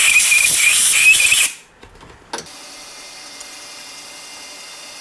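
Compressed-air blow gun hissing loudly with a wavering whistle, blowing metal chips out of tapped holes in a steel bar, until it cuts off suddenly about a second and a half in. A single click follows, then only a faint steady hum.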